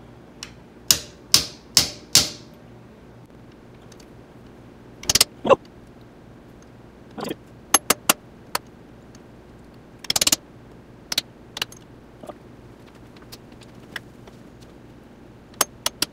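A hammer striking a 14 mm socket, driving the brake-pedal pivot seal into its tight bore in the powder-coated frame: four hard metallic blows about half a second apart near the start, then lighter scattered taps and short runs of taps.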